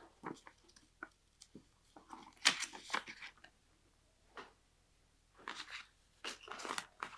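Paper rustling and crinkling as documents are handled and their pages leafed through, in short irregular bursts with the loudest a little past two seconds in.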